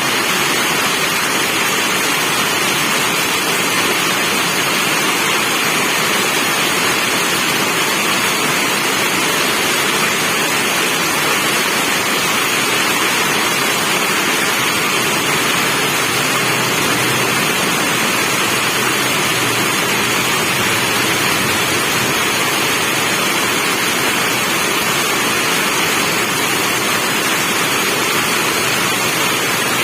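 Rain falling steadily: a dense, even hiss that does not change, with no separate drops or thunder standing out.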